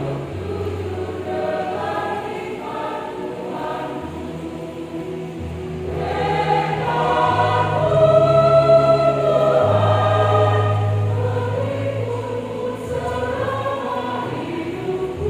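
Large mixed church choir singing with held low keyboard notes beneath; the singing swells to its loudest about halfway through.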